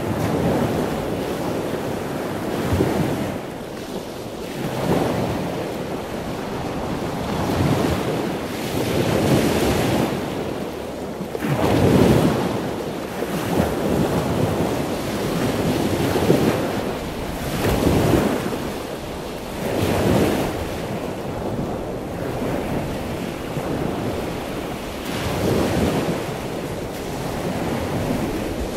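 Ocean surf breaking and washing in, swelling and fading every few seconds, with wind buffeting the microphone.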